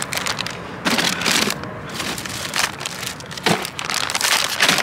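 Plastic bag of raw shrimp crinkling and rustling in irregular bursts as it is handled and opened.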